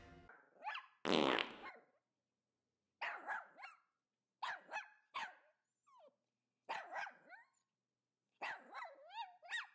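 A small dog giving short, high yips and whines in several separate bursts, with a rising-and-falling whine near the end.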